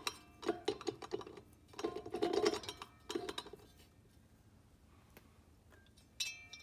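Steel parts of a 4L60E transmission's geartrain clinking and rattling in short bursts as the reaction shaft is turned and worked down into its splines to seat fully. Near the end comes a single sharp metallic clink with a short ring.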